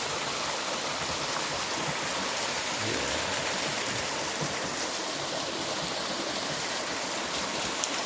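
Small waterfall on a creek: a steady rush of falling water.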